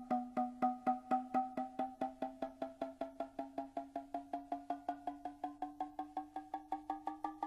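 Noh music: a pitched Japanese hand drum struck in an even series of strokes that gradually quickens, its tone slowly rising.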